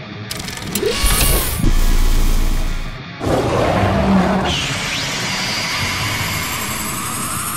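Cartoon sound effects over background music. A low mechanical rumble comes first, then a sudden new sound about three seconds in, and from about halfway a steady energy-beam blast with a faint rising whine.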